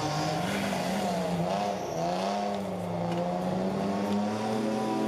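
Jeep Wrangler's engine working hard as it crawls up a muddy slope, the revs rising and falling again and again.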